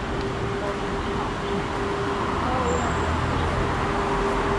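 Road traffic noise: a steady hum over the rumble of passing vehicles, the low rumble growing louder about halfway through.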